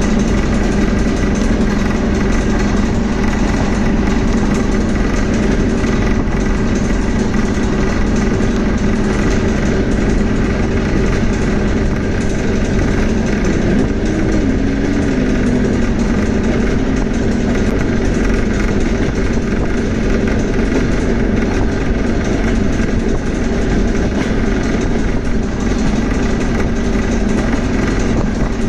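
Soviet-era passenger train running along the line, heard from inside the carriage: a steady rumble and hum of the train in motion, with a short falling tone about halfway through.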